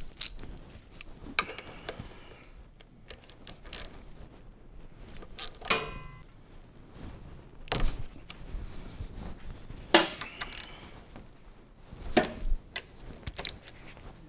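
Socket wrench and metal hand tools clicking and clinking while bolts on a motorcycle's front brake caliper are loosened: a string of separate sharp clicks and knocks, with one ringing metallic clink about six seconds in.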